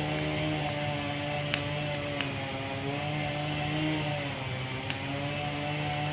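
Chainsaw running at high speed, cutting into a tree, its pitch wavering slightly under load. A few short sharp clicks sound over it.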